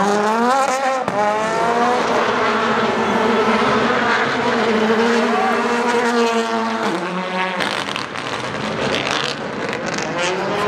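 Rally car engines at high revs under hard acceleration, the pitch climbing and falling back at each gear change as the cars pass. The sound changes abruptly about a second in and again about seven seconds in, as one car gives way to another.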